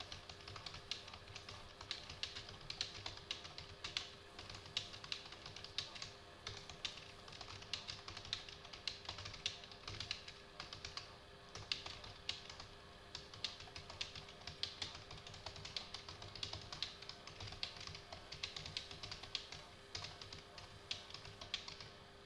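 Computer keyboard typed quickly and continuously, many keystrokes a second, a little away from the microphone, over faint steady tones.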